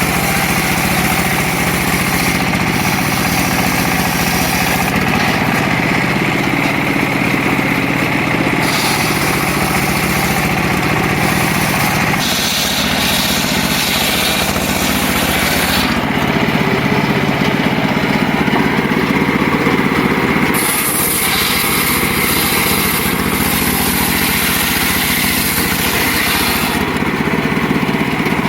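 Circular saw running and cutting wood. Under its steady drone, the higher cutting noise swells and fades several times as the blade goes through the wood.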